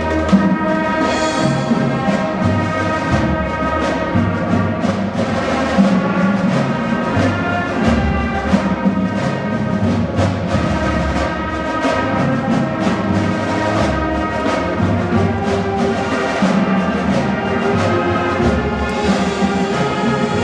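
High school marching band playing a full piece: sustained brass chords and melody over steady drum strikes.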